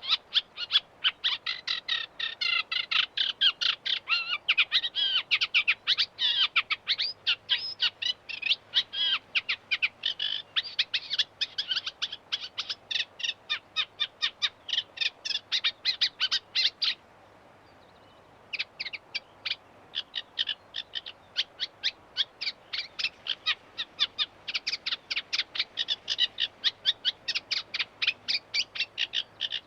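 Reed warbler singing: a long chattering run of rapid, repeated notes, broken once by a pause of about a second and a half a little past the middle before the song resumes.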